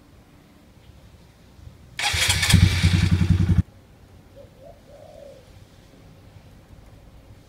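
Honda MSX 125's single-cylinder four-stroke engine with a Leovince slip-on exhaust, starting up: a loud burst of cranking and firing pulses about two seconds in that lasts about a second and a half and cuts off suddenly. A faint pigeon coo follows about a second later.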